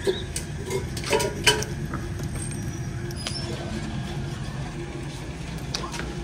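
Electric churning machine running steadily as it churns yogurt into lassi: a constant motor hum with a few light knocks in the first second and a half.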